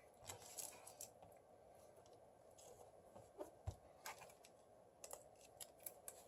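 Faint, scattered clicks and taps of small tools and phone parts being handled during a smartphone screen repair, with one soft knock near the middle.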